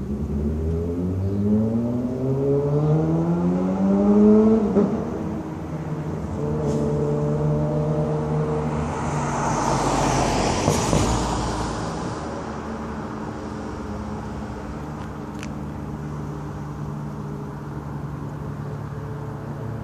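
Sport bike's loud exhaust accelerating, its pitch climbing for about five seconds to the loudest point, then a steadier engine drone with a rush of a vehicle passing around the middle, settling to a steady hum.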